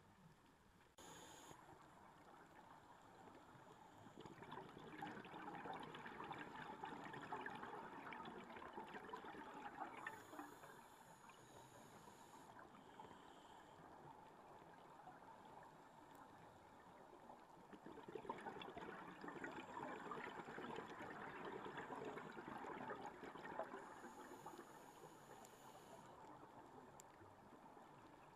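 Scuba diver's exhaled bubbles from the regulator, heard underwater through the camera housing: two long swells of faint bubbling and crackling, with quieter stretches between them as the diver breathes in.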